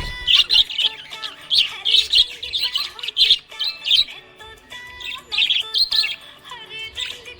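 Small pet parrots chirping, a rapid run of short, high chirps and squawks repeating over and over.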